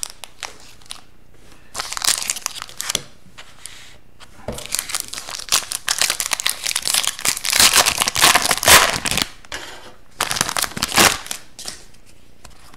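Foil wrapper of an Upper Deck Series Two hockey card pack crinkling and tearing as it is ripped open by hand, in several spells of crackling, loudest about eight seconds in.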